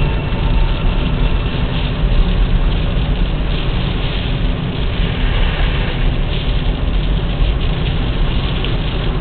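Car driving through heavy snow, a steady, loud low rumble of engine and road noise with a hiss of wind over it.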